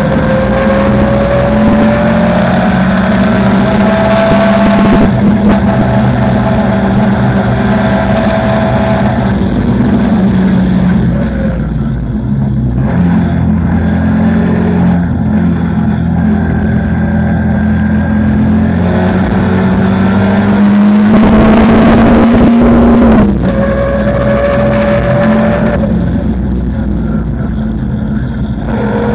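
Race car engine heard from the open cockpit at speed on track, its pitch climbing as it accelerates and falling as it slows for corners, several times over. Near the loudest climb, about three-quarters of the way in, the pitch breaks off suddenly at an upshift and starts climbing again.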